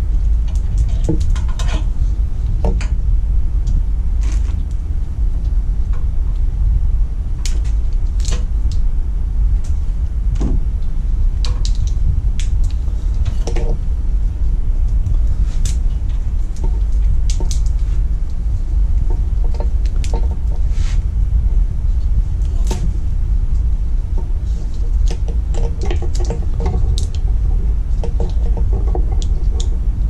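Hands pulling and working old plastic split loom and tape off a wire bundle, giving irregular small clicks and crackles, over a steady low rumble.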